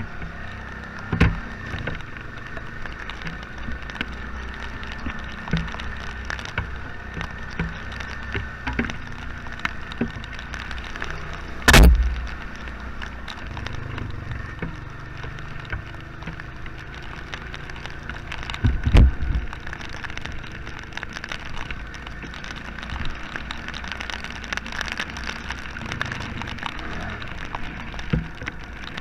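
Honda Fourtrax ATV running on a muddy trail in heavy rain, with many small raindrop taps and a steady hiss throughout. Three loud thumps, about a second in, near the middle and about two-thirds through, the one near the middle the loudest.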